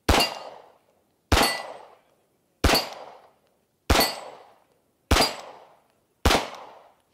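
Six handgun shots fired at a steady pace, about one every 1.2 seconds, each trailing off in a short echo.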